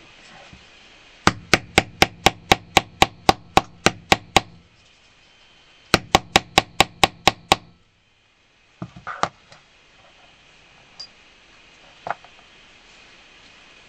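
A small craft hammer tapping a rivet-setting rod to set a metal rivet through a leather strap on a metal block. Two runs of sharp, even taps: about a dozen at roughly four a second, a short pause, then about nine quicker ones. A few light knocks follow as the tools are set down.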